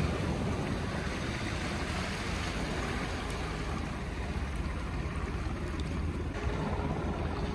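Steady rushing of wind and ocean surf, with a low wind rumble on the microphone.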